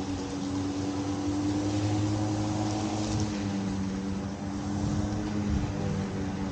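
Ryobi 20-inch corded 13-amp electric lawn mower running, its motor and blade giving a steady hum and whine over a rushing noise, the pitch shifting slightly now and then.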